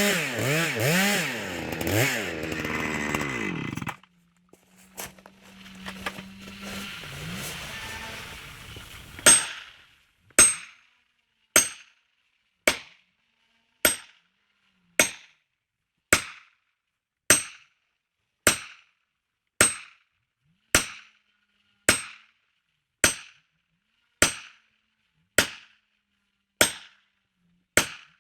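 Chainsaw engine running and revving up and down, which stops abruptly about four seconds in. After a quieter lull, a steady series of sharp knocks begins, about one a second, each dying away quickly, and runs on evenly.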